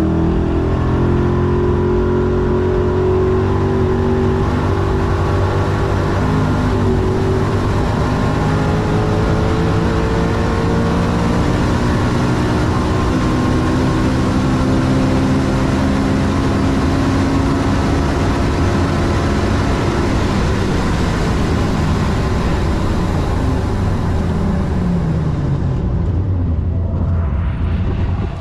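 Koenigsegg Regera's twin-turbo V8 hybrid drivetrain on a full-throttle run. The engine note climbs smoothly and continuously with no gearshift breaks, as its direct drive has no gearbox. Near the end the pitch falls away and fades as the car brakes back down.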